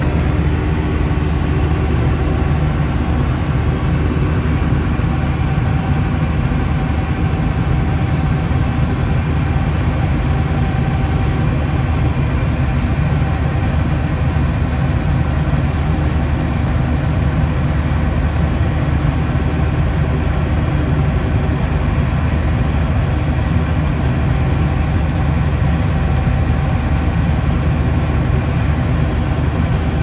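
CASE 465 skid steer's 86 hp diesel engine running steadily under load while powering a 96-inch FFC snow blower throwing snow, heard from inside the cab.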